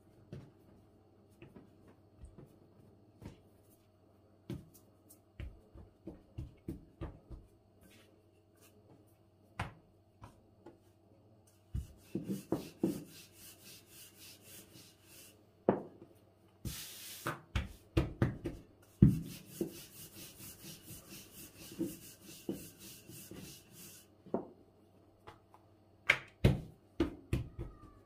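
Hands pressing dough balls on a floured wooden tabletop, with scattered soft knocks. From about halfway on, a rolling pin rolls out a round of baklava dough: a steady rubbing with frequent knocks as the pin and the dough are moved and set down.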